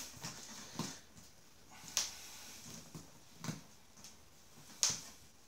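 Fingers picking and scratching at the tape on top of a cardboard box, with a few sharp clicks about a second and a half apart.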